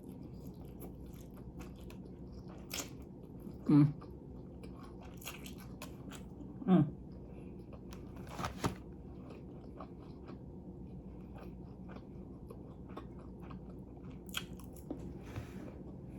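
Close-up mouth sounds of a person biting and chewing food, with small wet clicks and crunches. Two short, louder voiced sounds from the eater come about four and seven seconds in.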